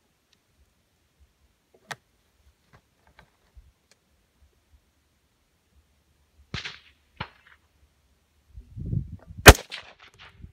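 A single loud rifle shot from a semi-automatic 6.5 Grendel AR-15, fired about nine and a half seconds in and followed by short echoing cracks. A few fainter sharp clicks come earlier.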